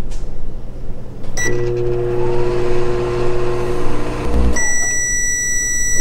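Microwave oven starting with a short beep, then running with a steady hum. About three seconds later the hum stops and a long beep sounds, the signal that the heating cycle has ended.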